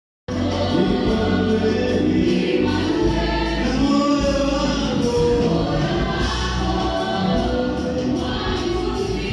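Live gospel worship music: a choir singing over a band with a steady deep bass.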